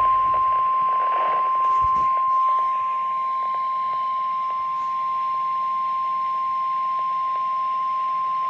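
Emergency alert warning tone of the kind NOAA Weather Radio uses (1050 Hz): a single steady high-pitched tone held for several seconds. It signals that a warning, here a severe thunderstorm warning, is about to be read, and it plays over a faint radio static hiss.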